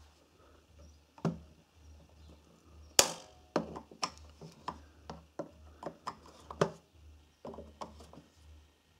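A screwdriver turning the screws in the plastic battery-cover case of a Fluke 1651B tester: a series of sharp clicks and knocks, the loudest about three seconds in, followed by a quick run of them.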